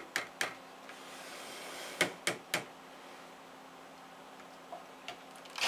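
A few sharp knocks and clicks as a plastic soap bucket and stick blender are handled and set down, two near the start and three in quick succession about two seconds in. Right at the end a louder whirring noise starts up.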